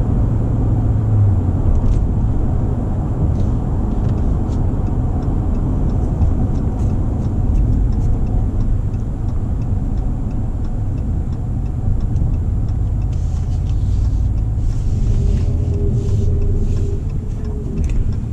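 Steady low rumble of a 2019 Ram 1500's 5.7-litre HEMI V8 and its tyres, heard inside the cab while towing a travel trailer. Faint short clicks come in over the last few seconds.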